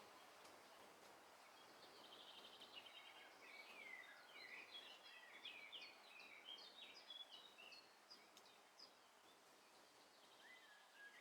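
Faint birdsong: many small birds chirping, with short quick whistles and trills, busiest in the middle and thinning near the end, over a soft background hiss.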